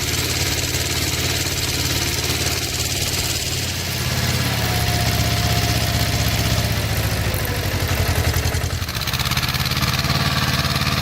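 Tractor engine running steadily, its note shifting about four seconds in and again near nine seconds.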